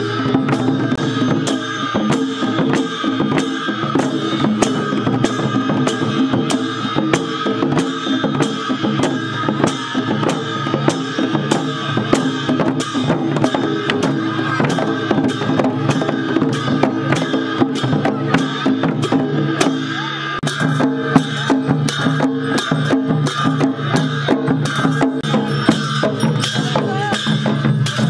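A group of Newar dhimay drums, large two-headed barrel drums struck with stick and hand, played together in a steady repeating rhythm.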